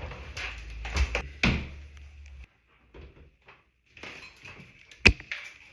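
A few knocks and thuds, with a low hum under the first ones, then a sharp knock about five seconds in.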